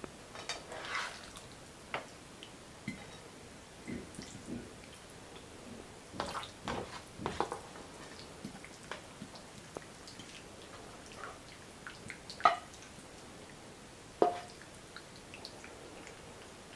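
A plastic spatula scraping and knocking against a stone-coated frying pan as sauce-coated fried pumpkin pieces are spooned onto a plate, with soft wet plops and scattered clicks. Two sharper knocks stand out in the second half.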